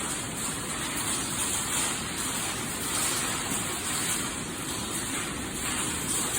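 Hail and heavy rain from a severe storm beating on the building, a steady, even noise with no breaks.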